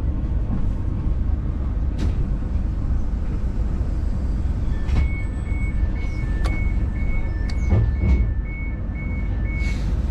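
Passenger train running, with a steady low rumble and a few sharp knocks. About halfway through, an electronic warning beep in two alternating tones starts, about three beeps a second, and stops abruptly near the end.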